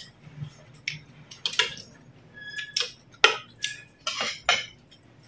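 Metal spoons clinking and scraping against ceramic bowls and plates during a meal: about nine irregular clinks, some ringing briefly.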